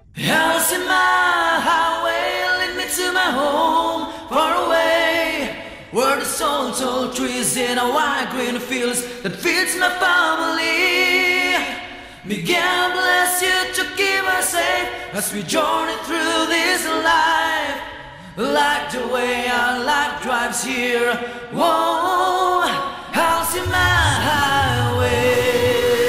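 Background song sung by voices with little or no accompaniment, in phrases of a second or two. A low bass sound joins near the end.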